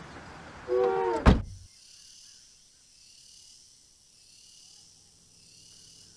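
A car trunk lid pulled down with a short squeak and slammed shut about a second in. Then night insects chirring in a steady, evenly pulsing high drone.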